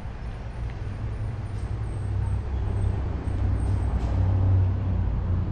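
Low rumble of road traffic, a vehicle passing, swelling to its loudest about four and a half seconds in.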